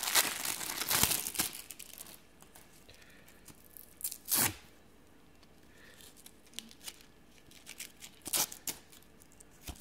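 Plastic packaging bag crinkling and tearing as it is pulled open by hand, loudest over the first two seconds. After that, a few brief rustles are heard as the contents are handled.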